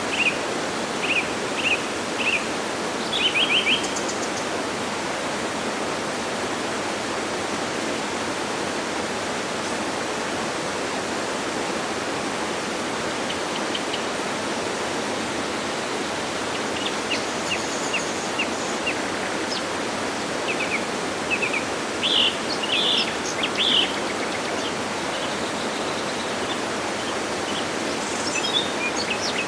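Steady rushing of a waterfall, with birds chirping in short series over it: several quick chirps in the first few seconds, more through the middle, and a few near the end.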